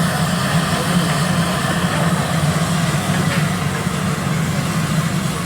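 A steady low mechanical drone, like an idling engine, with an even hiss over it.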